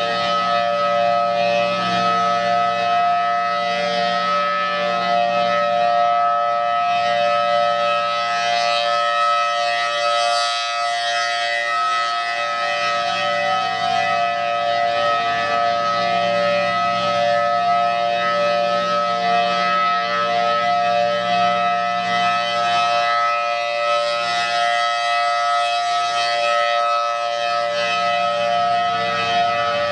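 Federal Signal Thunderbolt 1000T outdoor warning siren sounding during a scheduled test, holding a loud, steady tone made of several pitches at once.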